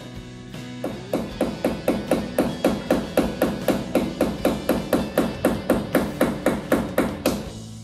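Rapid, even hammer blows, about four a second, nailing the internet cable's clips into the wall; they start about a second in and stop near the end. Background music plays underneath.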